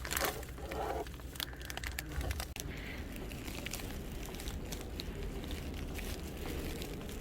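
Crinkling and rustling of something being handled, with scattered small clicks and crackles.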